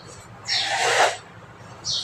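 Compressed sand being crushed, giving one crisp crunch about half a second in that lasts about half a second, then a shorter, higher crunch near the end.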